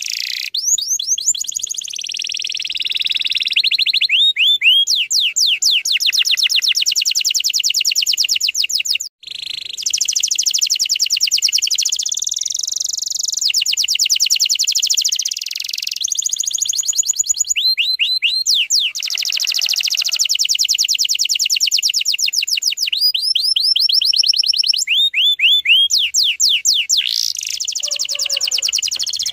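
Domestic canary singing a long, loud song of rapid high trills and rolls, fast runs of repeated notes that change tempo from phrase to phrase, with a brief break about nine seconds in.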